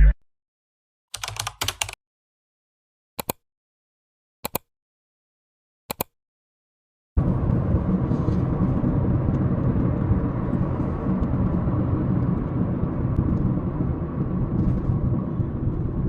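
A few short clicks over dead silence, then about seven seconds in a steady low rumble of a moving car starts abruptly and runs on evenly: road and engine noise.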